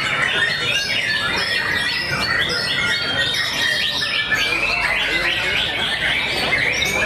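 Several white-rumped shamas (murai batu) singing over each other, a dense unbroken stream of quick whistles, chirps and trills.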